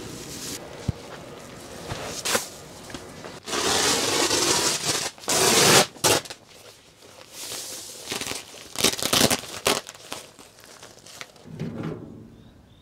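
A thin plastic bag rustling and crinkling in irregular bursts as used cat litter is bagged, loudest about halfway through.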